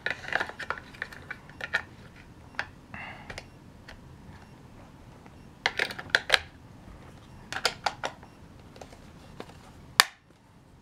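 AA batteries being pushed into the plastic battery compartment of a pistol-grip RC controller: clusters of light clicks and taps, with one sharper click near the end.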